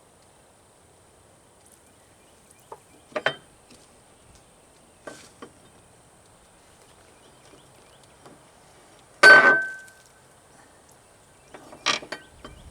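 Metal tools and parts clinking and knocking during work on a loader's hydraulic tilt cylinder: a few scattered strikes, the loudest about nine seconds in, ringing briefly, and a quick cluster near the end.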